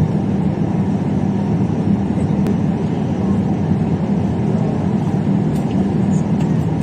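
Jet airliner cabin noise in flight: a steady low rumble of the engines and the airflow, with a constant hum.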